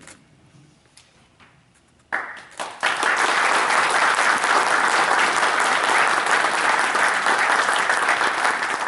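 A few faint knocks, then an audience breaks into applause about two seconds in, quickly swelling to steady, dense clapping.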